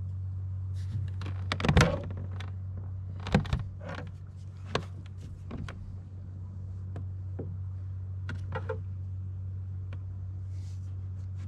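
Irregular knocks and clicks of fishing tackle against a plastic fishing kayak, loudest about two seconds in and again about three and a half seconds in, over a steady low hum.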